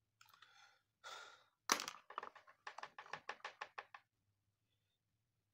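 A printed circuit board and multimeter test leads being handled: two brief scrapes, a sharp knock, then a quick run of about a dozen light clicks, roughly six a second.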